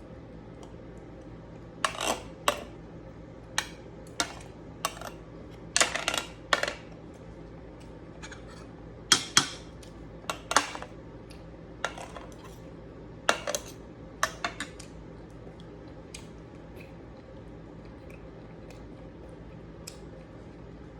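Cutlery clinking and scraping against a plate during a meal, in scattered short clicks and brief scrapes, growing sparse over the last few seconds.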